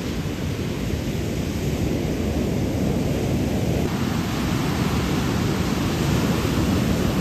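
Heavy monsoon rain pouring steadily, a loud even hiss that gets a little stronger about four seconds in.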